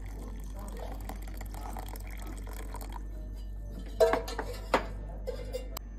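Water poured from a drinking glass into a glass bowl of liquid jelly mix, then a few sharp glass clinks about four seconds in as glassware is set down.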